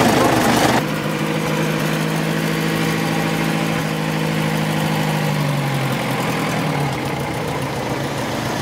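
Engine of a black vintage saloon car. It runs loud and close for the first second, then the car drives slowly past with a steady engine note whose pitch gradually drops over several seconds.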